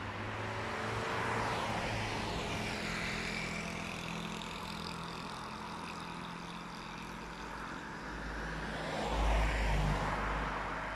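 A motor scooter and cars driving past on a village street, their engines humming and tyres hissing as they go by in the first few seconds. About nine seconds in, a Volkswagen Golf passes close by with a low engine rumble, the loudest moment.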